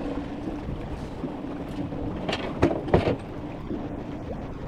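A boat's engine humming steadily under wind noise on the microphone, with three sharp knocks a little past halfway.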